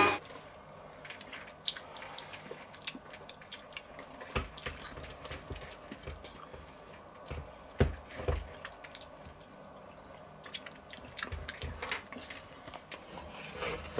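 Soft wet licking and lip-smacking as a man licks buttercream off a stand mixer's whisk attachment, with scattered small clicks and a few dull knocks.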